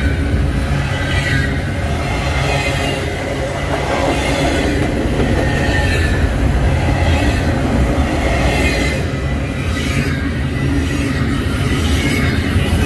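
Freight train's cars rolling past in a steady rumble, steel wheels squealing faintly on the rails at times.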